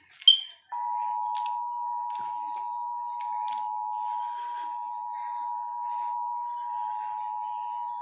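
Emergency Alert System attention signal: the steady two-tone alarm (853 and 960 Hz together) sounding from a TV broadcast, starting under a second in and holding without a break. A short high beep comes just before it.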